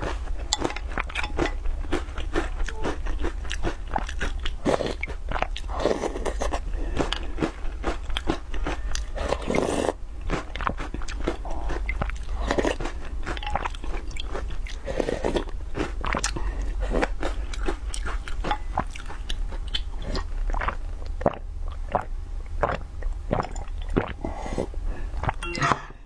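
Close-miked eating: chewing and crunching with many small crackling clicks and louder bites every few seconds, over a steady low hum.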